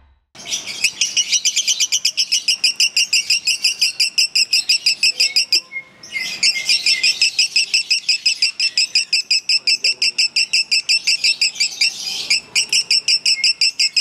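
Fischer's lovebird singing a fast, nonstop chattering trill of about six chirps a second, breaking off briefly twice. This is the continuous delivery that bird-contest fans call 'konslet'.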